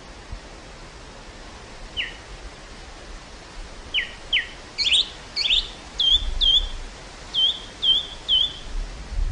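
A songbird singing over a steady hiss of wind in a field. A few single down-slurred whistles come about two seconds in, then a run of quick hooked notes at about two a second. A low wind rumble comes up near the end.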